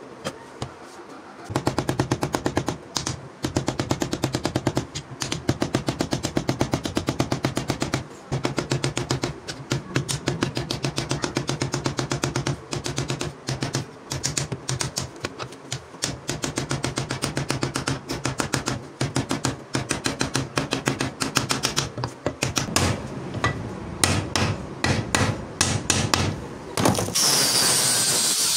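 A hammer rapidly tapping the steel pins of a machete's wooden handle scales, clamped in a vise, to peen them over, many strikes a second with brief pauses. Near the end an electric angle grinder starts up and grinds the wooden handle with a steady, hissing whine.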